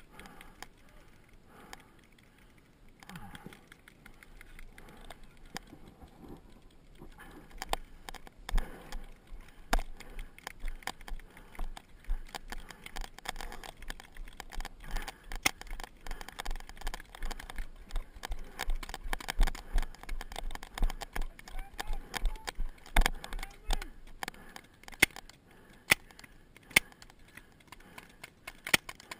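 Airsoft guns firing across a field: sharp irregular clicks and pops, sparse at first, then frequent from about eight seconds in, with quick runs of shots.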